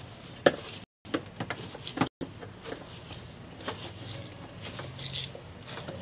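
Irregular clicks and knocks of a screwdriver working against the metal and plastic parts under a washing machine.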